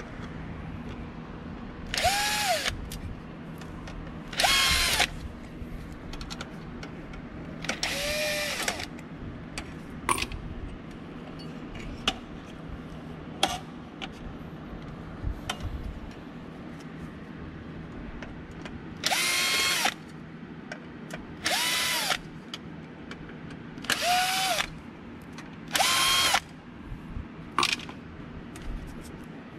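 Cordless drill-driver running in short bursts on the screws of a factory car radio's metal mounting brackets, about seven times, each burst a motor whine that rises and then falls. There is a long pause in the middle, and light clicks come between the bursts.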